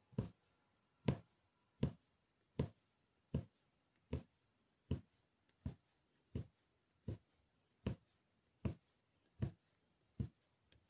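Punch needle stabbing yarn through fabric stretched taut on a frame: a soft thud with each stitch, in a steady rhythm of about one every three quarters of a second.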